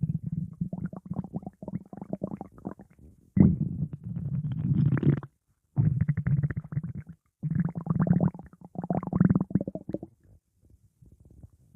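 Stomach growling: low, gurgling rumbles in four bouts with short breaks between them. The loudest bout starts about three and a half seconds in, and the rumbling fades away near the end.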